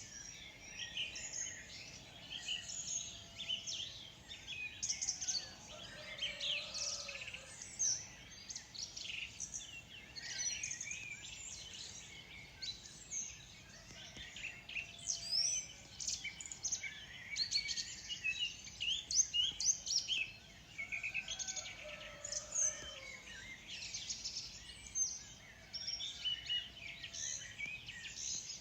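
Many small birds chirping and singing at once in a morning chorus, a continuous overlapping tangle of quick high chirps and trills.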